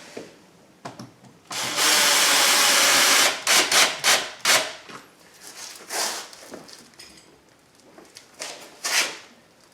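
A cordless power tool runs steadily for about two seconds, most likely driving a door trim panel screw. Several sharp clicks and rattles of handled parts follow, with quieter knocks and clicks after that.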